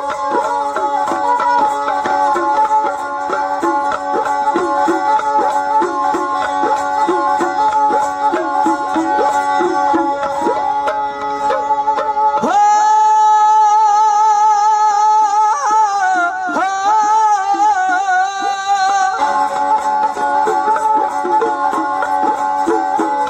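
Dhadi folk music: a bowed sarangi drone over quick rhythmic strokes on dhad hand drums. About halfway through the drums stop and a single long, wavering held note carries on for about six seconds before the sarangi and drums resume.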